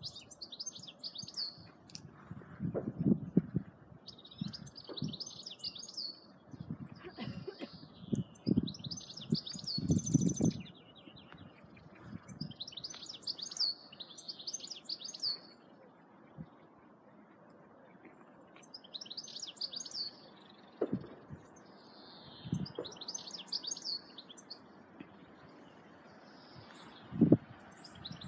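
Small birds chirping and twittering in short repeated phrases every second or two. Low rumbles on the microphone come and go in the first half, and a sharper low thump sounds near the end.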